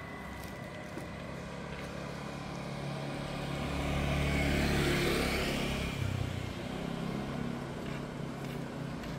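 A motor vehicle's engine running as it passes by, growing louder to a peak about halfway through and then fading.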